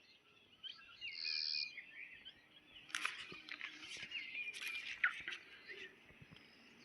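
Birds chirping and singing, with one whistled phrase coming twice, over faint outdoor background noise. A couple of short rustling bursts come about three seconds in and again near five seconds.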